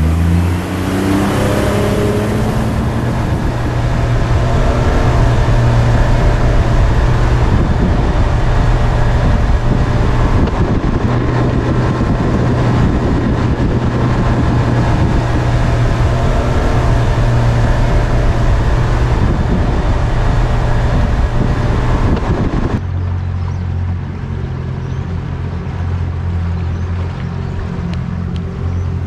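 A small boat's outboard motor revs up as the boat gets on the plane, then runs at speed with a steady rush of wind and water. About three quarters of the way through, this cuts abruptly to the motor's quieter, steady low hum at slow speed.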